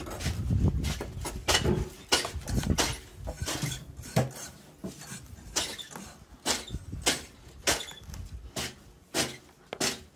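A series of sharp, irregular knocks, roughly one or two a second, over a low rumble in the first couple of seconds.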